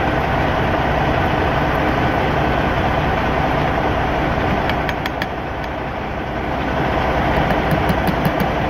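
Truck engine idling, a steady rumble throughout, with a few faint clicks about halfway through and near the end.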